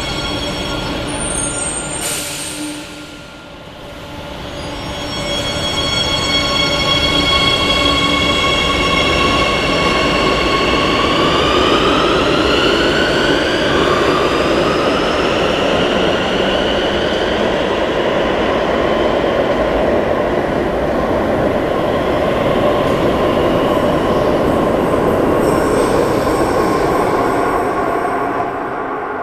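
Madrid Metro Serie 8400 train running under power: its traction motors whine in a stack of steady tones over a rumble of wheels on rail. The whine climbs in pitch as the train gathers speed, with a jump partway through, and the sound fades at the very end.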